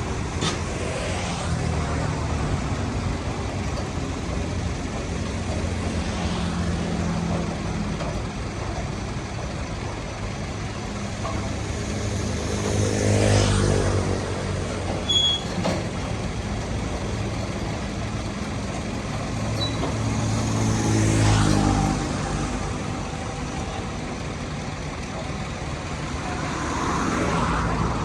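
Road traffic: a steady engine hum, with vehicles passing louder about halfway through and again about three quarters through.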